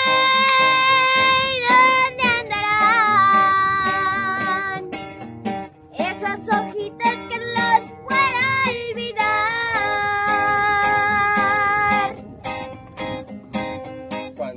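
A boy singing, holding long notes, with an acoustic guitar strummed and picked behind him.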